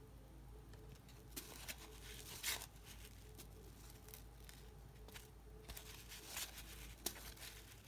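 Faint, irregular scrapes and flicks of 1987 Donruss cardboard baseball cards being slid one at a time off the front of a hand-held stack and onto the back.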